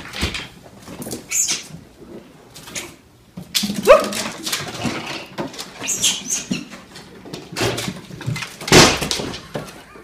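A domestic animal's cries mixed with short noisy bursts, with a rising yelp about four seconds in.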